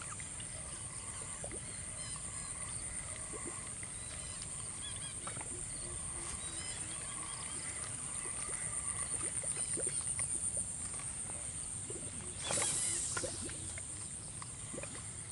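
Waterside outdoor ambience: a steady, high-pitched, finely pulsing insect drone with small bird chirps over it. About twelve and a half seconds in there is one short burst of noise, the loudest moment.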